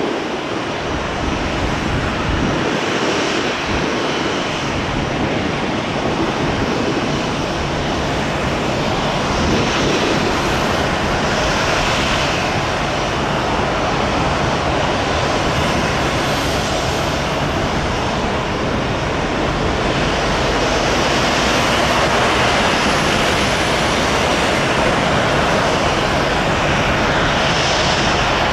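Boeing 787-8 Dreamliner on final approach with its landing gear down, its two jet engines at approach power: a steady rush of jet noise that grows slightly louder as the aircraft comes nearer.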